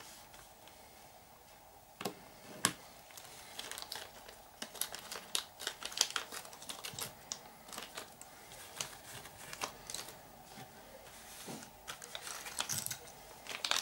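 Small plastic kit-parts bag crinkling and rustling as it is handled, with light clicks of small parts being picked up and set down. It starts about two seconds in with two sharp clicks, then goes on in irregular bursts.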